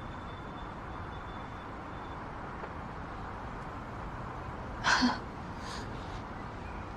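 Low, steady background noise of scene ambience, with one brief breathy sound about five seconds in.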